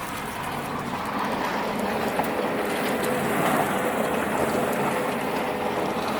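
Truck driving through slush, a steady rush of tyre and road noise with a low engine hum underneath.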